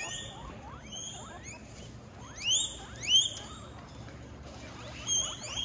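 Guinea pig wheeking: short, high squealing calls that rise sharply in pitch, coming in small clusters, loudest about three seconds in.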